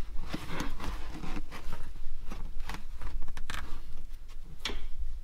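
A carpeted floor cover around a gear lever being worked loose by hand: scraping and rustling with scattered clicks and knocks, the sharpest a little before the end.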